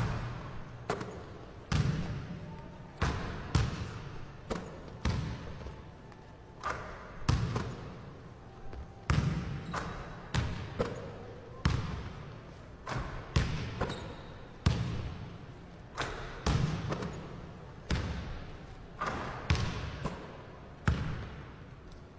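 Basketball bouncing on a gym floor, a sharp thud about once a second at uneven spacing, each echoing briefly in the empty gym.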